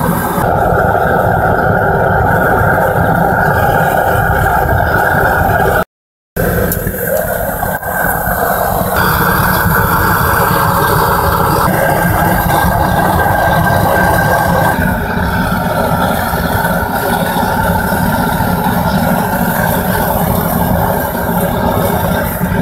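Gas burner firing a small metal-melting furnace: a loud, steady roar with a deep rumble. It cuts out for a moment about six seconds in.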